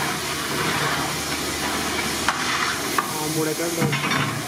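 A long-handled metal ladle stirring and scraping a huge metal pan of curry, with a couple of sharp knocks of ladle on pan, over a steady hiss. Voices in the background in the second half.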